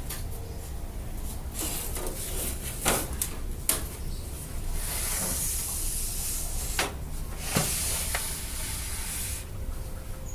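Hands fitting a power supply into a metal PC case: a few sharp clicks and knocks of parts and screws against the case, with stretches of scraping and rustling in between.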